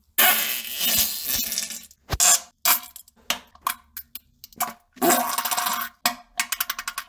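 A run of fart sounds: a long one lasting nearly two seconds, several short blasts, another lasting about a second around five seconds in, and a quick flutter of about a dozen short pulses near the end.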